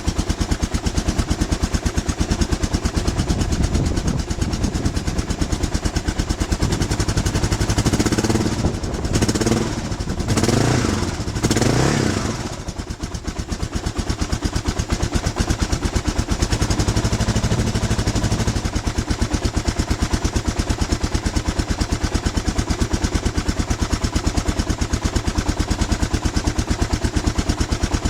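1996 Suzuki DR 650's single-cylinder four-stroke engine idling with a steady, even beat, revved briefly three times around eight to twelve seconds in. This is the test run after both ignition coils were replaced.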